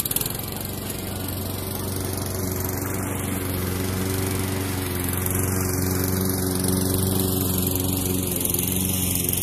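Walk-behind petrol lawn mower running at a steady speed as it is pushed past, cutting grass.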